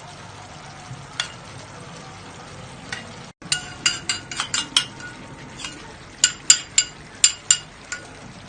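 A utensil clinking repeatedly against a tagine as seasoning is spread over the food: sharp ringing taps coming in quick runs, over a faint steady sizzle from the dish on the heat.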